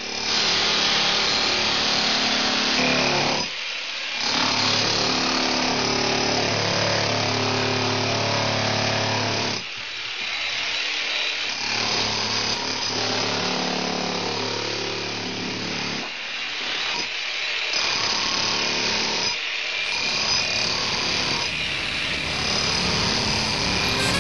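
Corded electric drill boring into a tiled floor, running in long stretches and stopping briefly several times.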